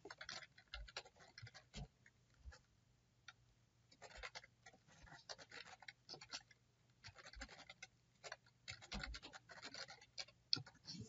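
Faint computer keyboard typing: irregular runs of soft key clicks with short pauses between them, over a faint low hum.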